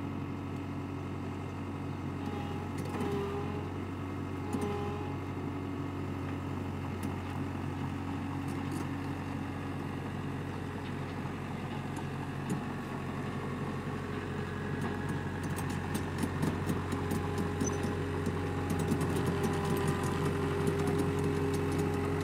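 Takeuchi TCR50 tracked dumper's diesel engine running steadily as the machine drives, growing louder toward the end as it comes closer. A rapid clicking and clinking joins in over the last several seconds.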